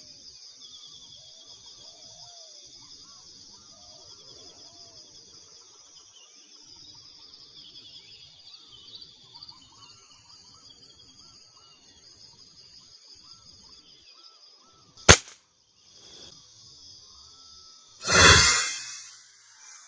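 Steady high buzzing of insects with faint bird chirps. About 15 seconds in comes a single sharp crack of a PCP air rifle shot, and about three seconds later a louder noisy burst lasting about a second.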